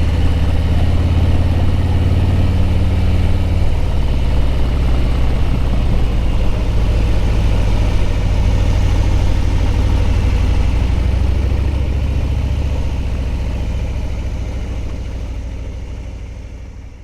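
Harley-Davidson touring motorcycle's V-twin engine running steadily while riding, with road and wind noise. The sound fades out over the last few seconds.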